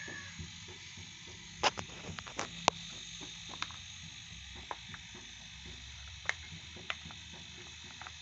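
Used refrigerator compressor running as an oil-suction pump, a steady low hum with hiss, broken by scattered sharp clicks, the loudest about two seconds in.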